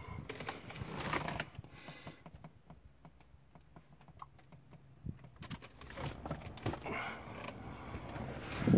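Light clicks and rustling from hands and a handheld camera moving inside a car cabin, with swells of rustle, and one sudden loud thump near the end.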